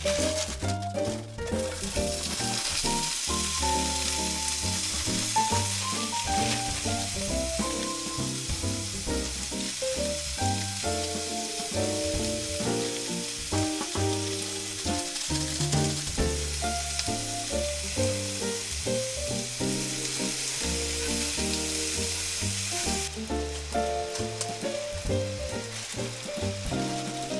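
Background music with a melody and bass line, over a steady hiss that cuts off suddenly about 23 seconds in.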